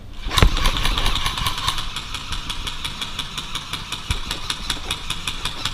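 Airsoft electric gun (AEG) firing a long full-auto burst: a rapid, even clatter of about ten shots a second over a steady gearbox whine, starting sharply just after the start.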